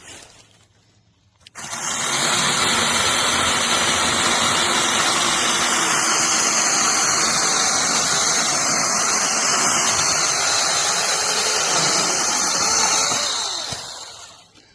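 Cordless brushless WORFCI mini chainsaw starting about a second and a half in and cutting through a small log, its chain running steadily and loudly for about twelve seconds before winding down near the end.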